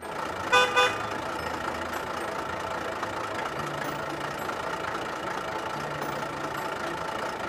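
Truck engine idling steadily, with two short horn beeps about half a second in.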